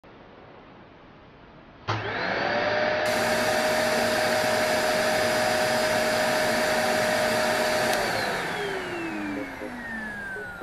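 Cordless stick vacuum cleaner switched on about two seconds in. Its motor spins up quickly to a steady high whine and runs, then it is switched off and winds down, the whine falling away.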